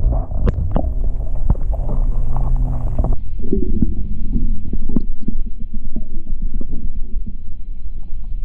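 Muffled underwater rumble of lake water moving around a submerged action camera, with frequent knocks and clicks in the first couple of seconds, then a steadier low rumble.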